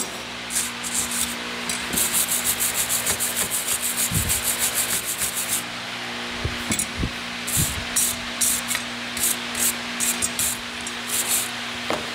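Steel wire brush scrubbed back and forth over grubby copper steam pipes and their union fittings. The strokes come quickly, several a second, for a few seconds, then slow to separate strokes.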